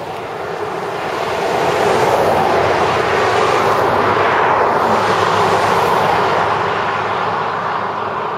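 A car overtaking on the highway: a rush of tyre and road noise that swells over about a second, holds for several seconds, then slowly fades as the car draws away.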